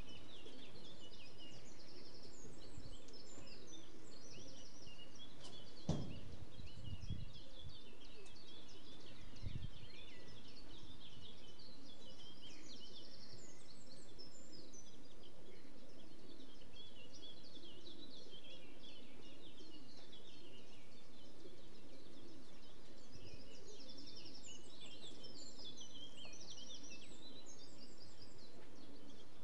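Songbirds chirping and singing over a steady low outdoor background, with a couple of low thuds about six and nine seconds in.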